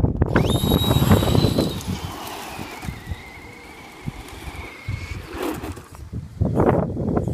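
Electric RC car motor whining at a high pitch, sliding lower as the car slows, then holding steady before cutting out about five seconds in, over a rough rumble of the car running on the ground.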